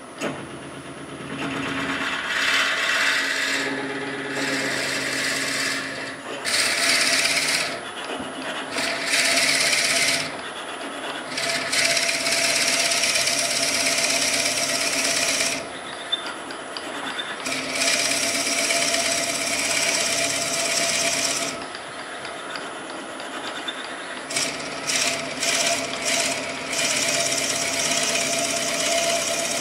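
A drill bit boring into the end grain of an oak blank spinning on a wood lathe. The cutting noise comes in about seven bursts of a few seconds each, over the lathe's steady hum.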